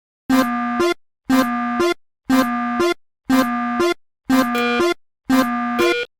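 Synthesized railroad crossing warning tone, an electronic chime repeating about once a second. Each tone lasts about two-thirds of a second and ends with a quick upward slide in pitch.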